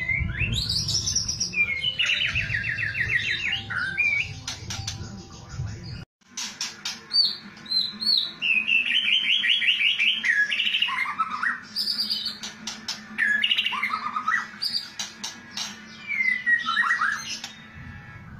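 White-rumped shama (murai batu) singing: rapid rattling 'kretekan' trills mixed with sharp clicks, whistled notes and downward-sliding phrases. The sound cuts out for an instant about six seconds in and resumes without the low background rumble.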